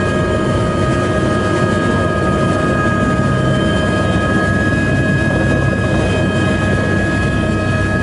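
Helicopter's turbine engine and rotor heard from inside the passenger cabin as it lifts off. It is a steady, loud drone with a constant high turbine whine over a dense low rotor rumble.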